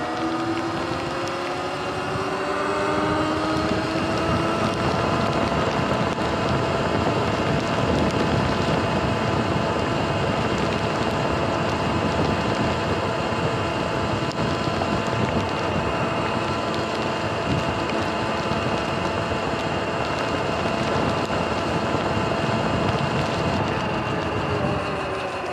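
Sur-Ron electric dirt bike's motor whine rising in pitch as it accelerates over the first few seconds, then holding steady at cruising speed over a loud rush of wind and tyres on wet pavement. Near the end the whine falls as the bike slows.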